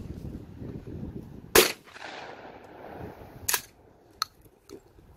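Remington 870 pump-action shotgun fired once, about a second and a half in, the report echoing away over about a second. A second, quieter sharp crack comes about two seconds later, followed by a couple of faint clicks.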